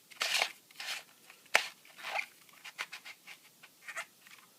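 Plastic twisty puzzle ball being turned by hand, giving a run of short scrapes and plastic clicks with one sharper click about a second and a half in; its turning is stiff.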